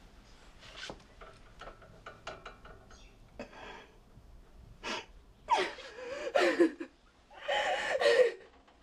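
An elderly bedridden man gasping and wheezing for breath: two long, strained, wavering gasps about five and a half and seven and a half seconds in. Before them come faint clicks and rustling.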